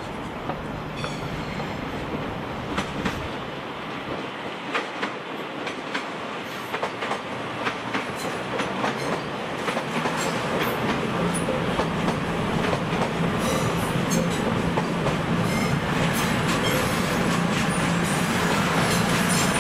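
Train moving through a station, its wheels clicking and knocking over the rail joints, with a steady low hum that grows louder over the second half.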